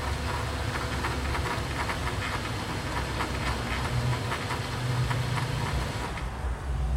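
2009 Pontiac Torrent's 3.6 V6 engine idling steadily, running now that an external ground wire from the battery to the ECM case stands in for the missing ECM case ground.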